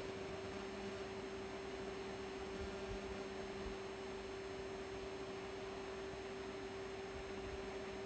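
Steady electrical hum with one clear pitched tone from the switched-on klystron power supply, a fainter lower tone joining about half a second in.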